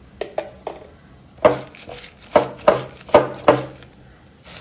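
Knocks and clinks on a cut-glass bowl while soaked dried prawns are mixed with salt in it. A few light clicks come first, then five louder, sharp knocks about half a second apart from around a second and a half in.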